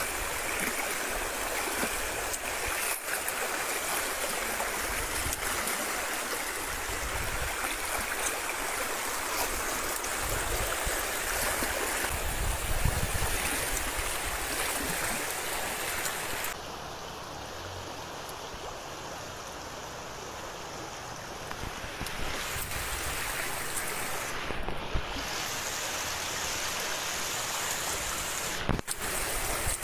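Floodwater rushing, a steady noise of fast-flowing water. The hiss dulls for several seconds past the middle, and the sound cuts out briefly twice near the end.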